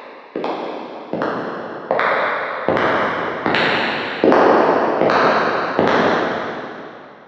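Footsteps, about one step every 0.8 seconds, growing steadily louder as if approaching, each step followed by a long echoing tail. The last step comes about six seconds in and fades away.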